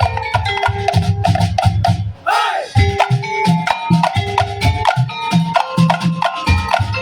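Tongtek ensemble playing: quick, tuned wooden and bamboo knocks in a busy pattern over a steady low drum beat. The playing pauses briefly about two seconds in, under a wavering high sound, then picks straight up again.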